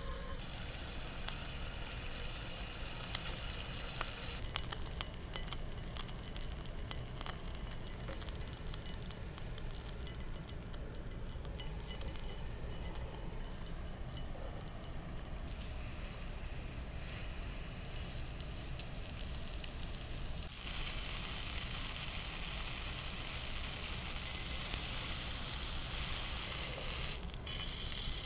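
Food sizzling in a small frying pan on a portable gas cartridge stove. Light crackling in the first half turns into a strong, steady sizzle about halfway through, and it gets louder again a few seconds later as vegetables go into the hot pan.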